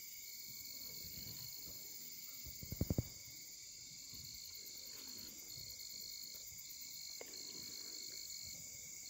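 A night insect chorus of crickets trilling steadily at several high pitches. About three seconds in comes a brief cluster of soft low thumps.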